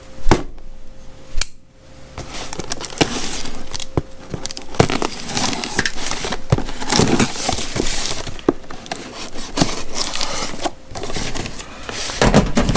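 A small cardboard shipping box being opened by hand: two sharp clicks near the start, then continuous scraping, rustling and crackling of cardboard and paper being handled.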